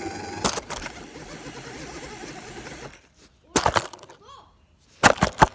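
A steady whirring noise with a faint rising whine for about three seconds, then a few sharp knocks and clatters.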